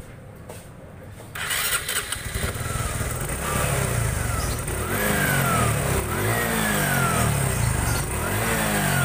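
Honda Supra X 125 fuel-injected single-cylinder engine starting up about a second and a half in, then revved in repeated throttle blips about once a second, the pitch falling after each. Its cam chain timing has just been corrected.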